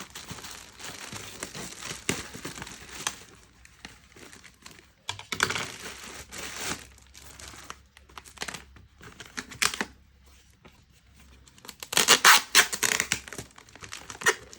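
Shipping packaging being torn and crumpled open by hand: irregular crinkling and tearing in bursts, with a quieter lull past the middle and the loudest tearing near the end.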